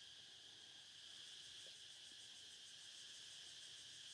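Faint, steady insect chorus: a continuous high-pitched drone with a fast, faint pulsing above it.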